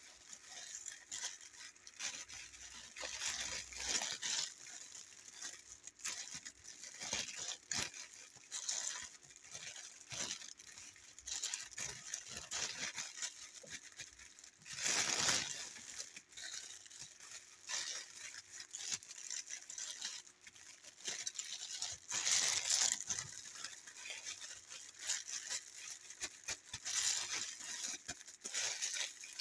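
Irregular close rustling, crackling and tearing of grass and leaves as an elephant handles vegetation, with louder swells about halfway through and again a few seconds later.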